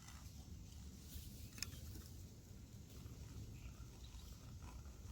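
Faint, uneven low rumble of background noise, with one light click about one and a half seconds in.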